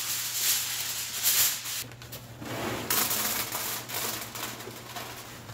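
Aluminium foil being handled and crinkled, in irregular rustling crackles.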